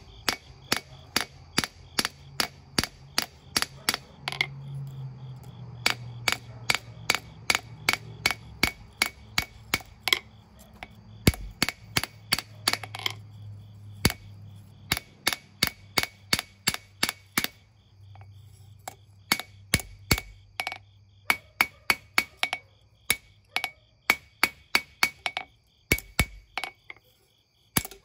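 Hand hammer striking a hot knife blade of leaf-spring steel on an anvil, about two to three blows a second, each ringing briefly. The blows come in runs broken by a few short pauses, with a low hum underneath.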